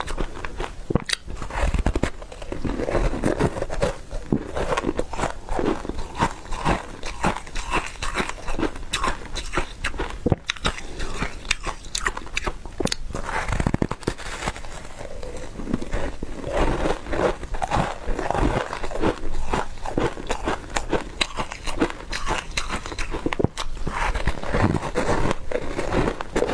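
Close-miked biting and chewing of a block of foam ice with a frosty top: a steady run of crisp crunches and crackles, one after another.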